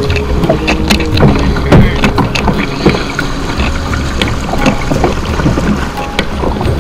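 Choppy water churning and splashing around a kayak's hull, with irregular splashes from the paddle blades dipping in, and wind rumbling on the microphone.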